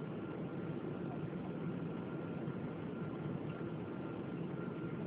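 Steady drone of a Boeing 777-200ER heard from inside the passenger cabin: engine and airflow noise, even and unchanging, with a faint thin whine above it.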